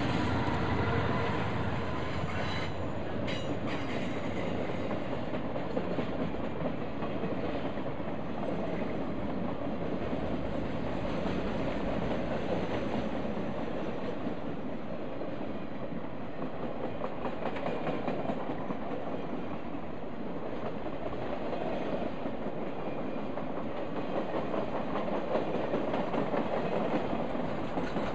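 Norfolk Southern RoadRailer trailers rolling past on their rail bogies: a steady rolling rumble with wheels clicking over the rail joints. At the start, the trailing ex-Conrail SD60 diesel locomotive is heard passing.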